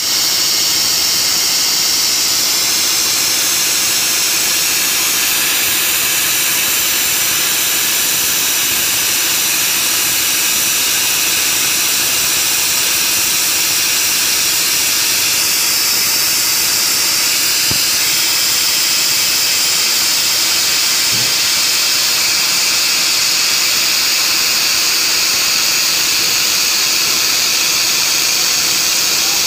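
Machine-mounted cutting torch hissing steadily as it cuts through steel plate.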